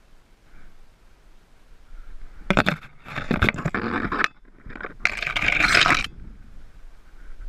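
Two loud scraping noises, each about a second and a half long, with a short break between them.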